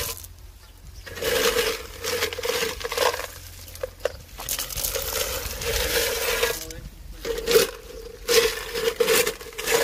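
Crushed-stone coarse aggregate scooped with a metal scoop and poured into a metal cylindrical measure, stones clattering and rattling against the metal over a ringing tone. It comes in several separate scoopfuls with short pauses between them.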